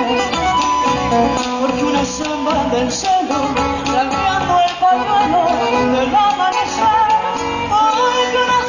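Folk music played on guitars, with singing.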